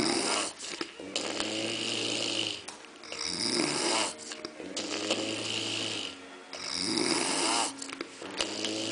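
A person snoring loudly: three low, buzzing snores on the breath in, about three and a half seconds apart, each alternating with a hissing breath out.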